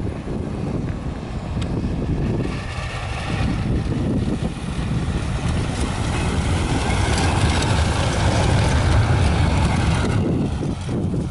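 Tram passing close by on its rails: a rumbling run of wheels and motor noise with a faint whine. It builds steadily, is loudest as the tram goes by, and falls away suddenly about ten seconds in.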